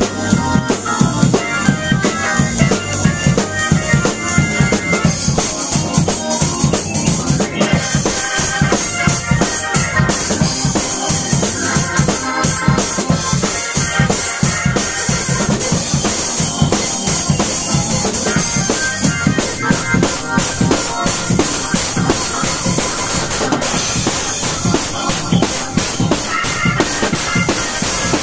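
Live gospel music: an organ played over a drum kit keeping a steady beat.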